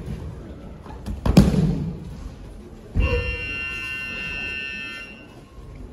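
A judoka thrown down onto the tatami: one heavy thud with a short boom, the loudest sound. About a second and a half later comes another thud, followed by a ringing tone of several steady pitches that lasts about two seconds and then stops.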